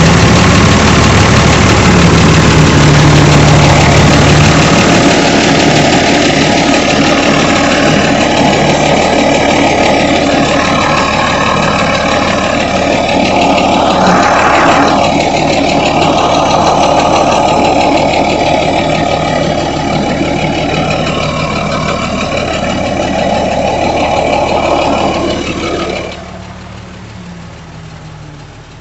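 Engine of a truck that has sat unused for three years, running steadily at idle. About 26 seconds in the sound drops off sharply to a much lower level.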